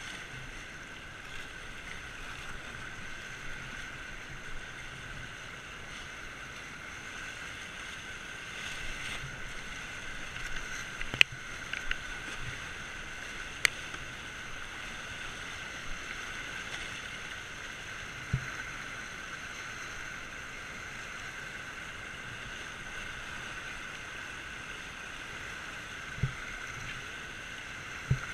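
Whitewater rapids rushing steadily around a kayak running down the river. A few sharp knocks come about 11 and 14 seconds in, and short dull thumps come later.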